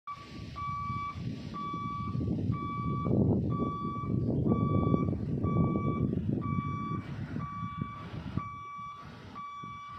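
Level crossing warning alarm beeping steadily, about one half-second electronic beep per second, sounding as a train approaches. Under it runs an uneven low rumble, loudest in the middle, that fades out near the end.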